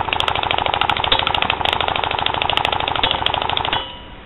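Golden Eagle AK-47 airsoft electric gun firing one long full-auto burst: a rapid, even stream of shots from its motor-driven gearbox for nearly four seconds, cutting off suddenly.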